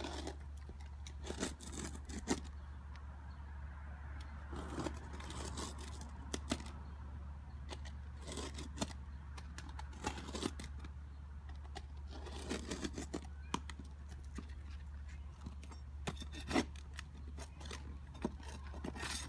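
Utility knife cutting and scraping at a damaged roof shingle, with irregular scrapes and clicks, over a steady low hum.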